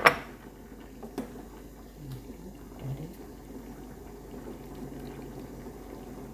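A sharp click at the start and a fainter one about a second later, with a few weaker ticks, over a steady low background noise.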